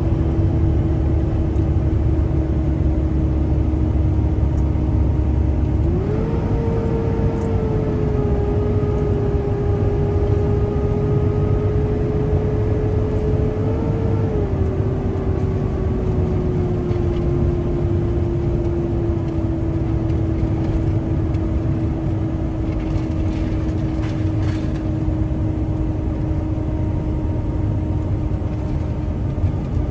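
Hotshot pickup truck driving at road speed, a steady rumble with an engine hum that rises in pitch about six seconds in, holds, then slowly drops back.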